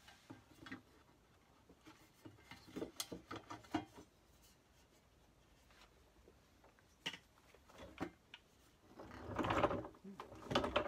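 A plastic recessed handle dish being pushed and worked into the cutout in the side of a speaker cabinet: scattered light knocks and clicks, then a stretch of rubbing and scraping near the end.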